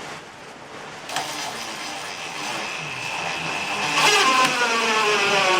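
Power drill driving a screw with a number 2 bit: the motor whine builds and grows louder, then cuts off suddenly near the end.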